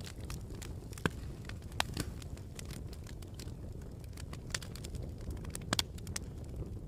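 Campfire burning: a steady low rumble of flame with irregular sharp crackles and pops, the strongest a quick pair of pops near the end.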